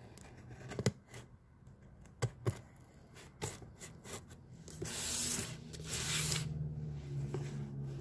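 Hobby craft knife slicing through packing tape on a cardboard shipping box: a few sharp clicks and scratches, then two longer ripping strokes about five and six seconds in. A low steady hum comes in behind the second half.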